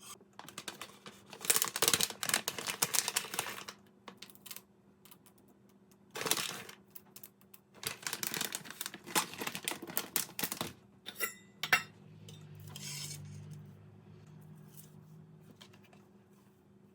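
Small objects being handled: bursts of clicking and rustling with light clinks, a short ringing clink about eleven seconds in, then a faint low hum for a few seconds.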